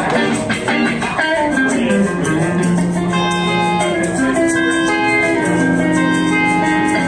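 Live acoustic song: guitar picked and strummed while a woman sings, holding long notes through the second half.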